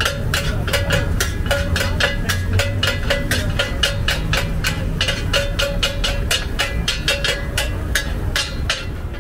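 Rapid, slightly irregular knocking of hard objects, about four to five strikes a second, each with a short ringing tone.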